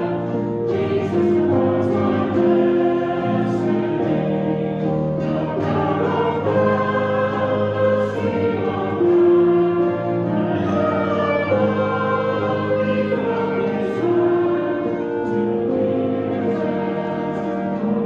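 A hymn sung by a church congregation with instrumental accompaniment, in slow, held notes.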